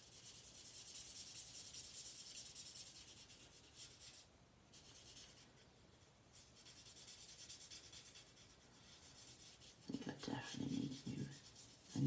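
Stampin' Blends alcohol marker nib rubbing on cardstock in repeated small strokes while colouring in a leaf: a faint, high scratchy hiss that pauses briefly about four seconds in. A short murmur of voice about ten seconds in.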